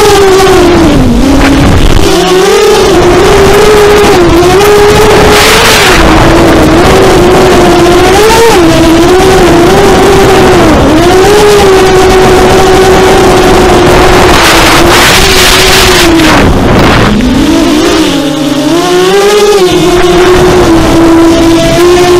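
FPV quadcopter's electric motors and propellers whining loudly, the pitch rising and falling constantly with the throttle. The pitch sags lower briefly about a second in, and again more deeply about 17 to 19 seconds in. Two short rushes of noise come in about five and fifteen seconds in.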